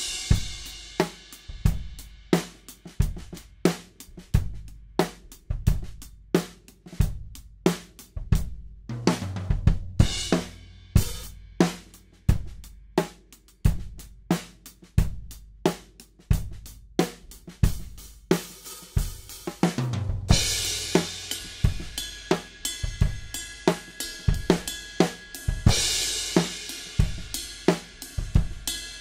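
Drum kit played in a steady beat, with kick, snare and hi-hat, a short fill about a third of the way in, and heavier crash cymbals ringing in the last third. It is heard through a pair of Samson C02 small-diaphragm condenser microphones used as drum overheads.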